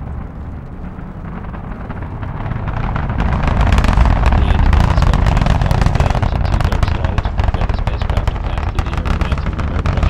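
Space Shuttle Discovery's solid rocket boosters and main engines at full thrust during ascent: a deep, continuous rumble that swells louder about three seconds in, with dense, rapid crackling.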